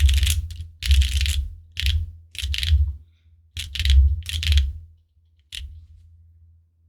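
Typing on a QwertyKeys Neo65 mechanical keyboard with Dangkeebs Cookies n' Cream tactile switches, GMK keycaps and a carbon fiber plate: clacky, high-pitched keystrokes in several quick bursts. The typing stops about five seconds in, and one last keypress follows about half a second later.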